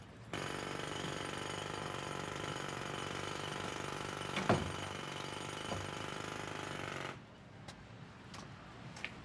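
A power tool rattling loudly and steadily, jackhammer-like, which starts abruptly just after the start and cuts off suddenly about seven seconds in. A single sharp knock sounds about halfway through. After the rattle stops, quieter background remains with a few light clicks.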